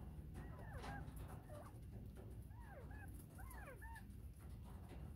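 Bobwhite quail giving soft, faint calls: short arching whistled notes in two small clusters, one about half a second in and another about three seconds in.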